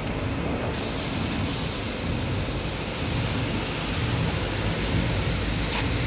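Steady mechanical din of wire mesh machinery running, with no clear rhythm; the hiss grows brighter about a second in.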